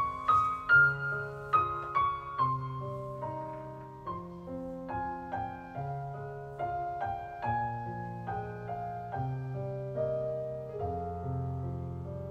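Solo piano music: a gentle melody of single notes, about two a second, over held bass notes, a little louder in the first couple of seconds.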